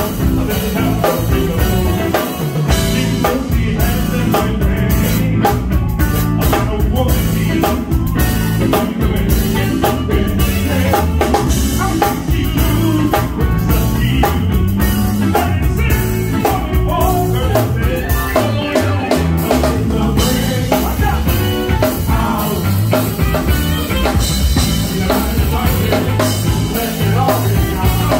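Live band playing an upbeat song on drum kit, electric guitar and keyboard, with a woman singing lead into a microphone.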